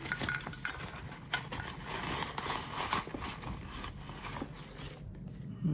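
Rustling of a fabric drawstring pouch and plastic packaging being handled and opened, with light clicks and knocks as the folding metal camping stove inside is drawn out; the handling stops about five seconds in.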